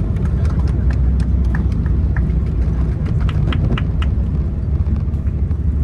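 Steady low rumble of engine and airflow noise inside a Boeing 777 cabin during takeoff, with scattered faint clicks and rattles.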